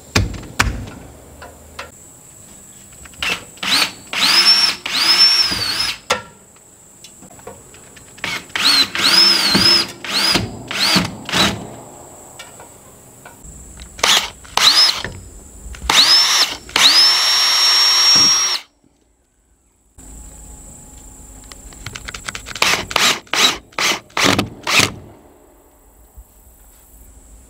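A Porter-Cable cordless drill bores holes through a PVC pipe fitting in several trigger bursts. Its whine rises as the motor spins up and then holds steady. After a break comes a run of short, quick bursts as a set screw is driven in.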